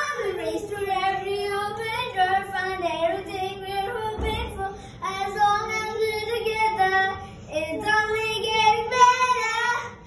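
A young girl singing a pop song in a high child's voice, the melody continuous with only brief breaths, and a short low thud about four seconds in.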